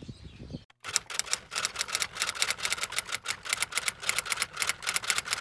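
Typewriter keys clacking in a rapid, uneven run: a typing sound effect added to a closing text card. It follows a brief stretch of faint outdoor background noise that cuts off under a second in.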